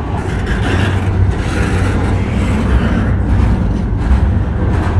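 Double-stack intermodal freight train's container well cars rolling past close by: a steady rumble of steel wheels on the rails, with faint scattered clicks.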